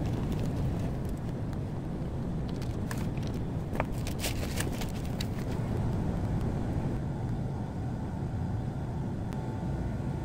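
Steady low outdoor background rumble with a few faint clicks.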